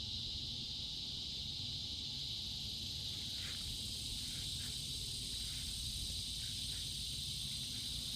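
Steady high-pitched chorus of insects such as crickets, with a few short, faint calls scattered through the middle and a low background rumble.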